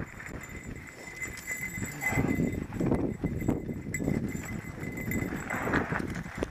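Mountain bike rattling downhill over a rough, dry dirt trail: tyres crunching on loose dirt and the bike clattering with irregular knocks over the bumps, picked up by a helmet-mounted camera.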